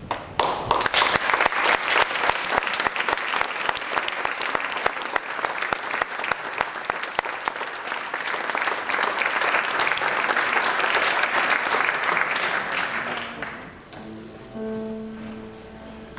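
Audience applauding for about thirteen seconds, then dying away. Near the end a few soft held pitched notes sound.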